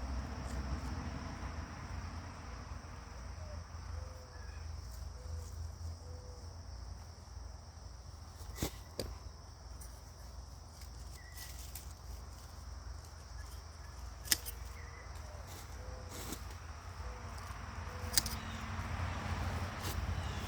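Outdoor background of a steady high insect trill and a low rumble, with faint bird chirps. A few sharp clicks stand out: two close together about nine seconds in, one around fourteen seconds and one near the end.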